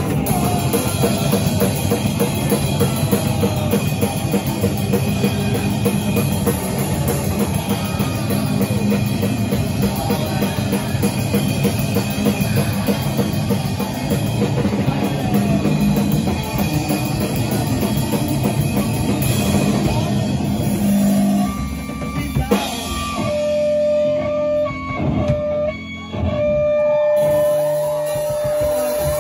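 Live rock band playing loud, with drum kit and guitar. About 21 seconds in the full band drops out, leaving a single held guitar tone that breaks off briefly twice and then carries on to the end.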